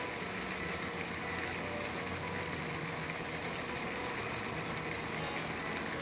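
Steady background ambience with a low, even mechanical hum and no distinct events.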